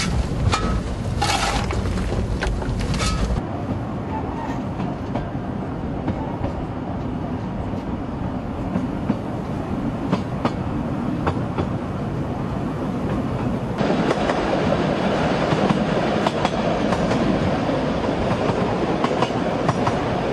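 Sharp metal clanks of a fire iron worked in a steam locomotive's firebox for the first few seconds. Then a narrow-gauge steam train running, a steady rumble and clatter of the wagons on the track, which grows louder about two-thirds of the way through.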